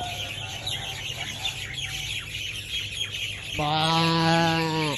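Birds chirping over a steady background hiss, then about three and a half seconds in a loud, drawn-out animal call at a steady pitch that lasts over a second.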